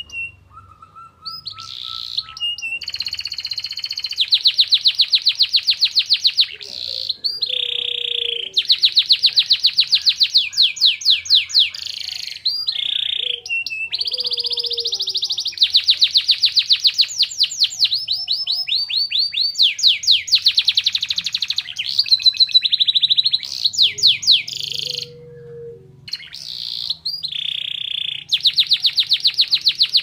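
Domestic canary singing a continuous song of very fast rolling trills and rapid repeated notes, in phrases of a few seconds separated by short breaks. The song carries imitated white-eye (pleci) phrases.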